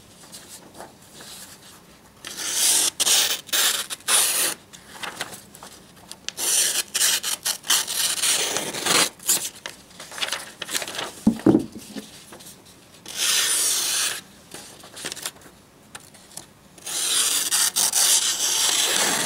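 A hunting knife slicing through a sheet of paper in a paper-cut test of its edge's sharpness. Four long slicing strokes, each lasting about two to three seconds, with quieter paper rustling and a short knock between them.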